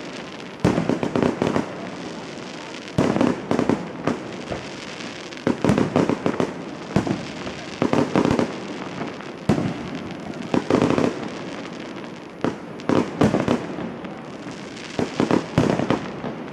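Fireworks display: clusters of sharp bangs and crackling shell bursts come every couple of seconds, each dying away before the next.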